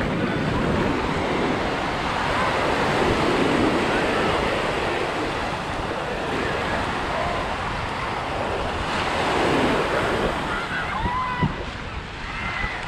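Small waves washing up on a sandy beach, with wind buffeting the microphone. Faint voices of beachgoers come through near the end.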